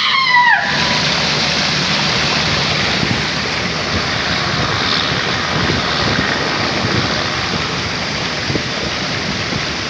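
Water rushing steadily down a tube-and-bowl water slide. A short whoop from the rider, rising then falling, comes as he sets off.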